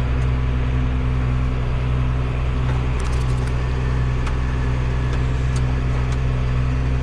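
A combine harvester running steadily under load while threshing soybeans, heard from inside the cab as a constant low hum, with a few faint ticks about three seconds in.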